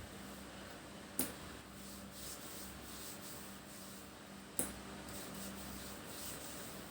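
Hands rubbing and kneading skin during a massage, a soft steady friction sound, with two sharp clicks: one about a second in and one near the middle.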